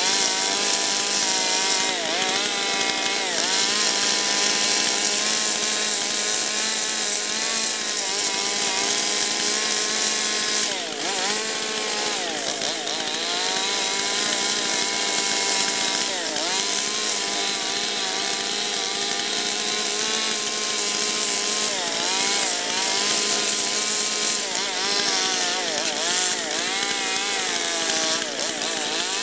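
Stihl two-stroke chainsaw running at high revs while carving into wood. Its engine note dips repeatedly as the chain bogs in the cut and climbs back each time.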